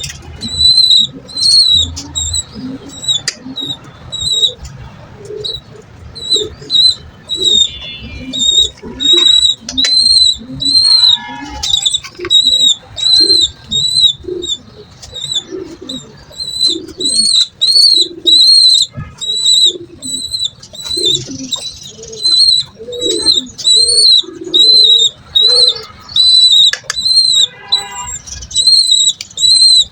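Young racing pigeon squab squeaking: high, thin peeps repeated a little faster than once a second, with lower pigeon coos underneath.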